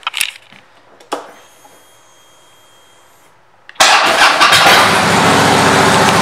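A 2014 Harley-Davidson Fat Boy Lo's Twin Cam 103 V-twin with Vance & Hines exhaust pipes is started. There are a few clicks and a faint whine, then about four seconds in the engine fires and settles into a loud, steady idle.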